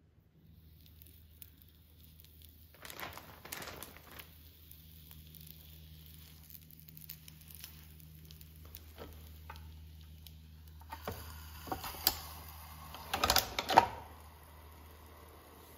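Soft handling rustles and small clicks as croissant dough pieces are set down on the plates of a Cuisinart waffle maker. Near the end the hinged metal lid is swung shut with a loud clatter and clunk, the loudest sound. A low steady hum runs underneath.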